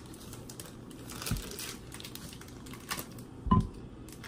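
Wooden spoon scraping and knocking against a glass mixing bowl while soft cassava-starch dough is scooped out, with scattered light clicks and two dull knocks, the louder one about three and a half seconds in.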